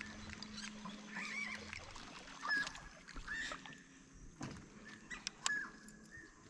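Kayak on a calm lake: a few soft knocks and water sounds from the boat, with scattered short animal calls around it. A low steady hum stops about two seconds in.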